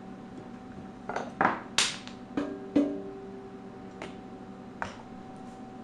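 Body shaping hammer striking a freshly welded sheet-metal bead to chip it: about seven irregular metal-on-metal blows, several leaving a short ring.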